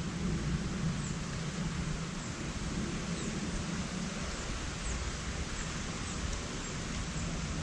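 Steady outdoor background noise, a low hum under an even hiss, with a few faint, short, high chirps scattered through it.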